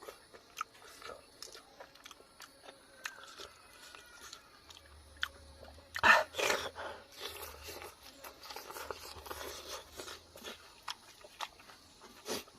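A person chewing and crunching food close to the microphone, with wet mouth clicks and smacks throughout and a louder burst of crunching about six seconds in.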